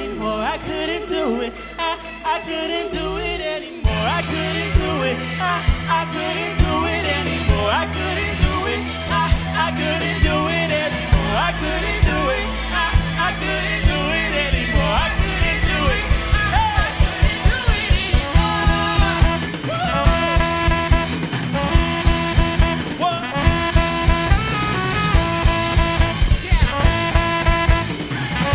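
Live band playing a pop-gospel-jazz groove on guitar, saxophone, bass guitar and drums, with a gliding melody line over held chords. The bass comes in about four seconds in, and the drums turn busy about halfway through.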